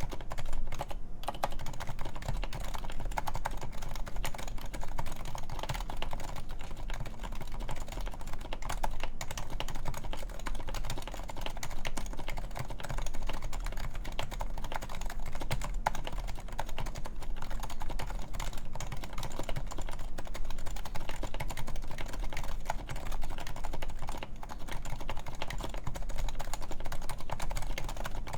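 Continuous fast typing on a Topre Realforce 104UB keyboard with 45 g Topre electrocapacitive switches, silenced sliders and lubed: a dense run of soft keystrokes with a brief pause about a second in.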